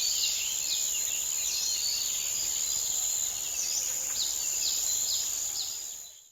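Forest birds chirping, many short downward-sweeping calls scattered through, over a steady high-pitched drone. Everything fades out near the end.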